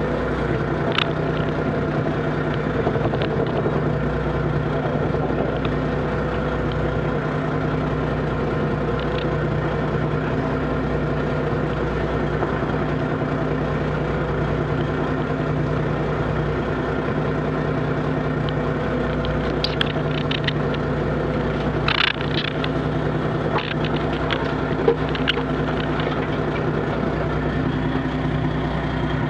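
Fishing boat's engine and net hauler running with a steady, even drone while a trammel net is hauled aboard, with a few sharp clicks and knocks of the gear in the last third.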